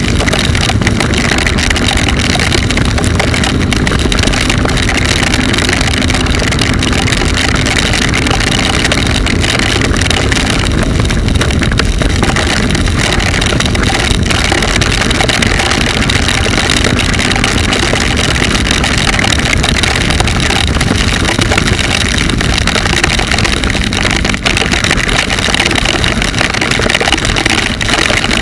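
Motorcycle ridden at a steady speed in heavy rain: its engine running under a loud, even wash of wind and rain noise on the bike-mounted camera's microphone.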